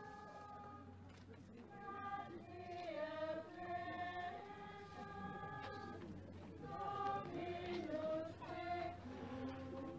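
Choir of cloistered nuns singing a slow hymn to the Madonna in long held notes, faint against the surroundings.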